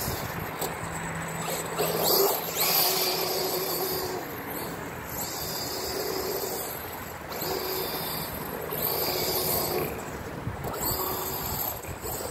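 Losi DBXL-E 2.0 electric 1/5-scale buggy driving across grass, its brushless motor whining in several throttle bursts of a second or two each.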